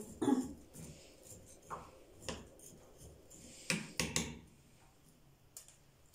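A spoon stirring rice in small clay pots, making light, irregular clicks and scrapes against the pottery.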